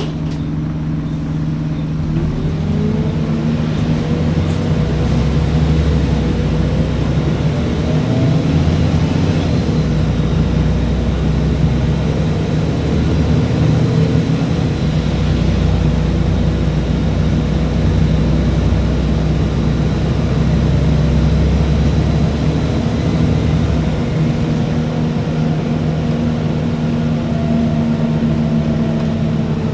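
A road vehicle's engine running steadily with a low rumble, its pitch rising for a moment a few seconds in.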